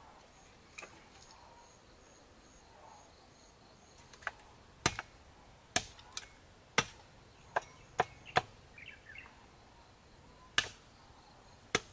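Machete chopping a bamboo pole: about ten sharp strikes at uneven intervals, starting about four seconds in. Faint pulsed high chirping is heard in the quiet first few seconds.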